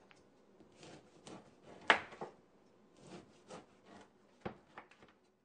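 A hand rubbing oil into a white oak cutting board: faint, irregular rubbing with light knocks of wood, the sharpest about two seconds in and another near the end.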